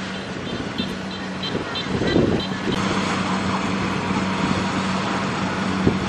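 Kubota DC-70G Plus rice combine harvester running: a steady diesel engine hum under a broad mechanical rush. A short run of high chirps, about three a second, sounds from about a second in until nearly three seconds in.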